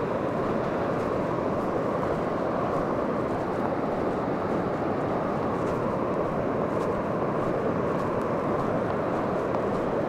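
Steady rushing noise of wind and breaking surf, unbroken and even in level.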